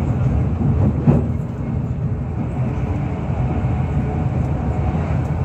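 Running noise heard inside a CrossCountry HST passenger coach at speed: a steady low rumble of wheels on rail, with one sharp knock about a second in.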